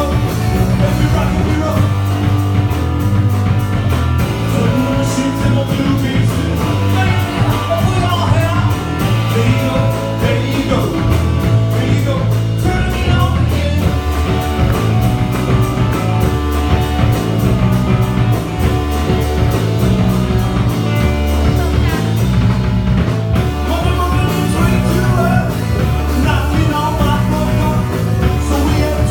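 Loud live rock music: a band playing with deep, sustained bass notes, guitar and a singing voice.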